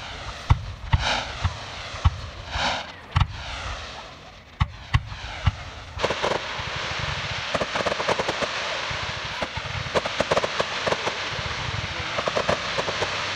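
Fireworks going off: sharp booms and whooshing launches in the first half. About six seconds in, these give way to a continuous hissing crackle full of small rapid pops.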